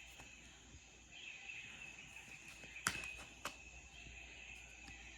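Jungle nature-sounds recording playing faintly: a steady high insect chirring, broken by two sharp clicks about half a second apart, a little after the midpoint.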